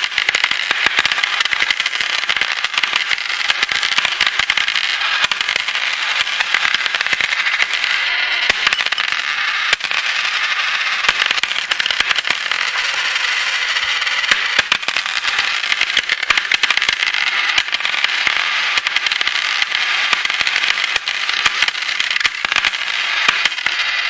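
Many coins clinking and jingling against each other without pause, a dense, steady rattle of small metallic clicks.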